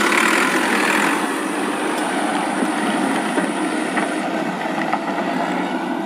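Toy tractor's small battery motor and gears whirring steadily.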